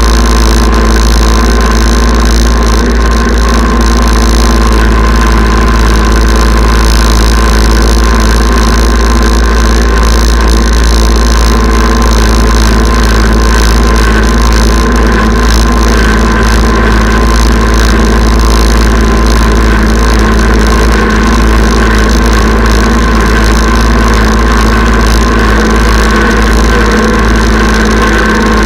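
Kubota tractor's diesel engine running steadily while pulling a chain harrow, loud and close with a heavy low rumble underneath.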